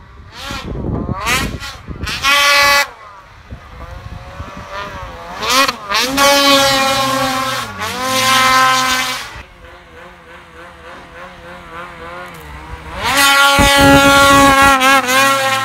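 Ski-Doo Summit 850 snowmobile's two-stroke twin revving hard in repeated throttle bursts while the sled wheelies through powder, pitch climbing and dropping with each burst. The longest, loudest bursts come about six seconds in and again near the end.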